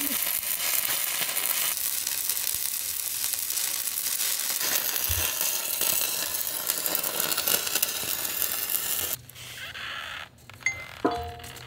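Stick-welding arc crackling and sizzling steadily, with 7018 rod. About nine seconds in it cuts off, and a few light metal clinks follow.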